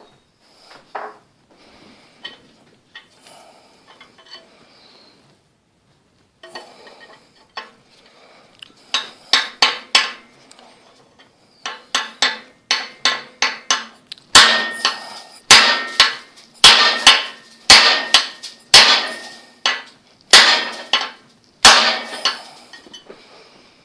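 A large hammer striking a steel bar wedged up under a seized piston in a Ford flathead V8 block, to knock the crown off the stuck piston. After some light clinks, a few lighter blows come, then a run of heavy, ringing metal-on-metal blows, nearly two a second, through the second half.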